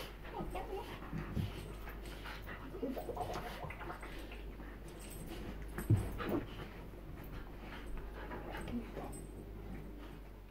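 Two bull terriers play-fighting, with short high vocal noises and panting as they wrestle. A thump about six seconds in.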